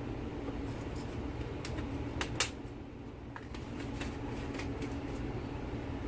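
Light clicks and taps of spice containers and a measuring spoon being handled while seasonings are measured out. Two sharper clicks come about two and a half seconds in, over a steady low hum.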